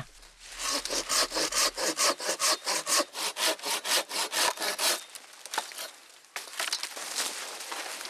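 Hand pruning saw cutting through a dead tree branch with quick back-and-forth rasping strokes, about four a second, stopping about five seconds in. Fainter scraping and rustling follows.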